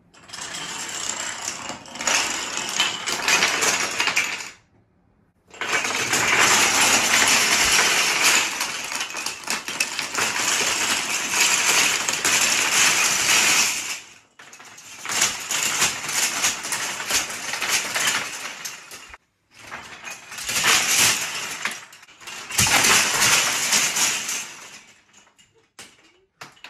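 Thousands of wooden Kapla planks clattering and cascading as a big plank tower and its domino runs collapse in a chain reaction. It comes in several waves with brief pauses between them, the loudest from about six to fourteen seconds in.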